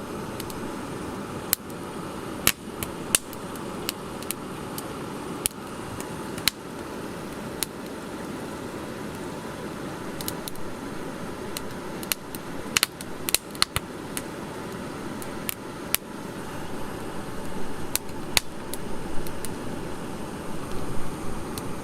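Wood fire burning: a steady low rush of flame with irregular sharp crackles and pops from the burning wood, busier and louder near the end.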